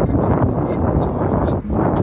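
Wind buffeting the microphone: a loud, steady noise with a brief dip about one and a half seconds in.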